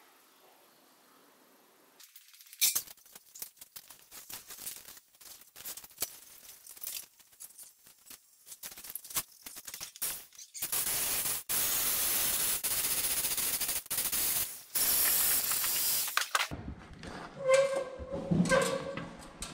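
Rustling and scattered clicks, then a loud steady spraying hiss for about six seconds, broken by a few short pauses. Near the end come knocks and creaks as a stepladder is climbed.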